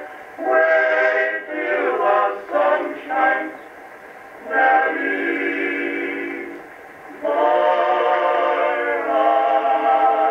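Male vocal quartet singing sentimental old-time songs in close harmony, from an Edison electrical disc record. The sound is thin, with no deep bass or high treble, and the sung phrases break briefly twice.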